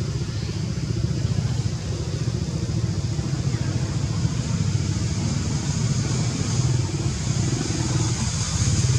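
A steady, low, evenly pulsing engine rumble, like a small motor running nearby, with a faint high hiss over it.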